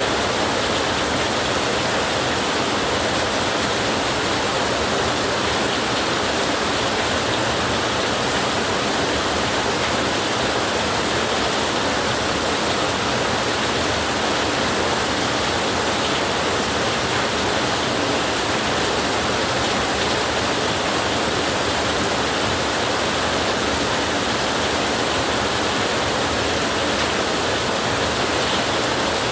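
Heavy rain falling as a steady, even hiss, with no thunder heard.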